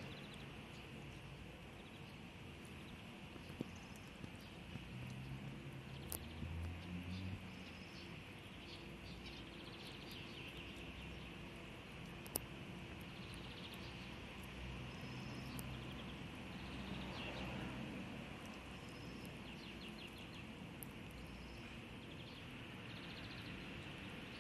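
Faint outdoor background: a steady hiss with small birds chirping now and then, a low hum that comes and goes, and a few single sharp clicks.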